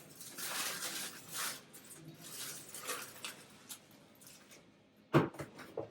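Rustling and crinkling of wrapping, likely the foil around a freshly baked ham, in several bursts. A sharp knock comes about five seconds in, followed by a couple of smaller clicks.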